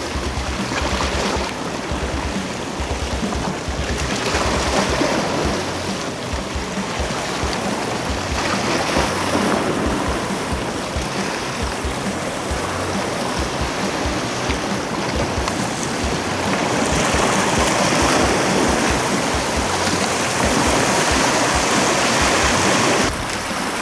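Sea water washing and lapping against a rocky shoreline: a steady rush of surf.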